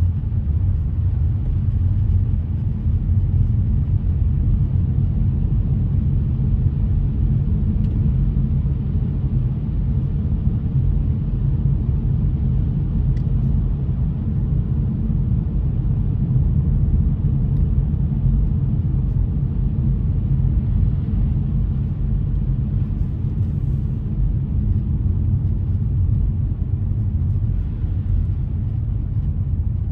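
Steady low rumble of a car driving along, engine and tyre noise with no sudden events.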